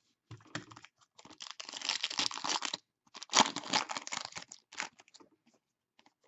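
Hockey trading cards and their pack wrapper being handled, rustling and crinkling in two spells of about a second and a half each, with scattered small clicks before and after.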